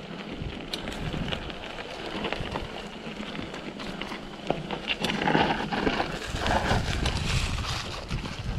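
Mountain bike rolling downhill on a dirt trail strewn with dry leaves: tyre noise over leaves and stones with many small clicks and rattles from the bike. Wind on the microphone rumbles in from about halfway as the bike picks up speed.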